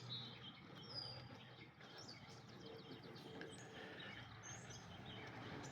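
Faint birds chirping: scattered short, high chirps and quick sweeps over quiet outdoor background noise.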